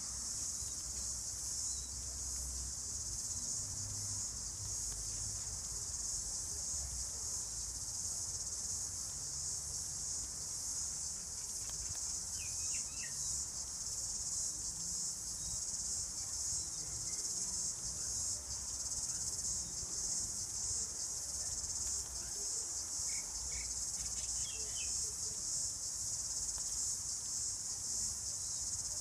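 Steady, unbroken high-pitched chorus of insects, with a few short high chirps about halfway through and again near the end over a faint low rumble.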